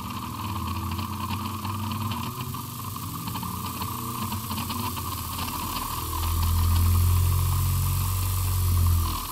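Singer 101 sewing machine's freshly reassembled potted brushed motor running without load on a foot controller, purring, its pitch rising and falling with the pedal. It gets louder with a deeper hum from about six seconds in, then drops away near the end.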